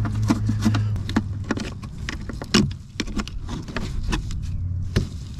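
Gloved hands handling the plastic wheel-well trim and wiring in a car's front wheel well: irregular plastic clicks, knocks and rustling, with one sharper knock about halfway through, over a low steady hum.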